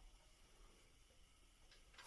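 Near silence: faint, even background hiss.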